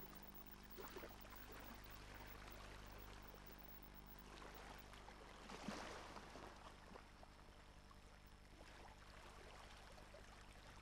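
Near silence: faint hiss over a low steady hum, with soft swells of noise about a second in and again around six seconds.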